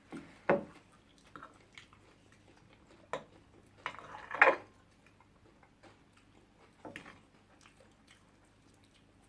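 Close-up eating sounds: chewing and biting, with scattered sharp clicks and a louder burst about four and a half seconds in.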